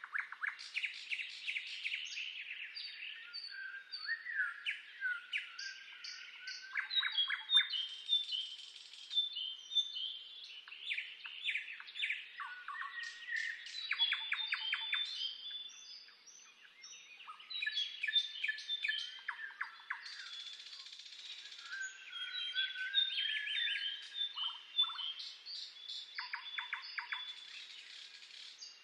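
A chorus of several songbirds singing at once: varied chirps, quick trills and fast runs of short notes that overlap throughout.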